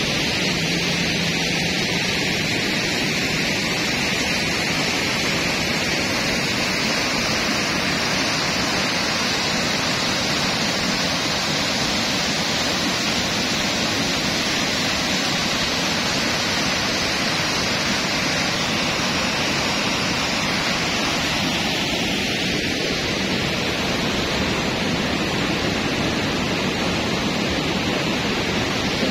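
Steady rushing of a fast, muddy river over rapids and a weir, an even, unbroken roar of water.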